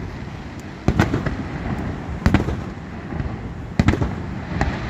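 Aerial fireworks shells bursting: about five sharp bangs spaced a second or so apart, two of them in quick succession near the end.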